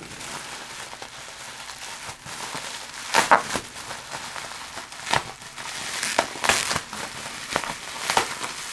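Bubble wrap crinkling and rustling as it is pulled apart by hand, with a few sharp, louder crackles now and then.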